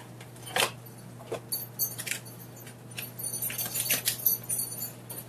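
Crinkling and tearing of a blind-bag mini figure's foil-and-plastic wrapper being opened by hand, in short scattered crackles and clicks, over a steady low hum.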